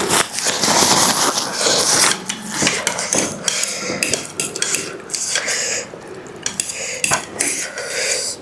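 Utensils clinking and scraping against bowls in quick, irregular clicks while noodles are eaten.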